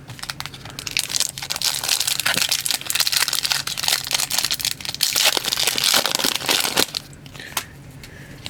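Plastic foil trading-card pack wrapper crinkling and crackling as it is handled, torn and crumpled, for about six and a half seconds before dying down.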